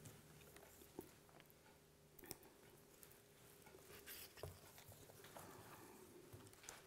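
Near silence with a few faint clicks and rustles as fennel fronds are picked off the stalks by hand.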